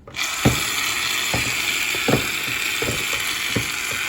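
Slime being stirred in a bowl, with short irregular knocks about every half second over a steady hiss that starts abruptly.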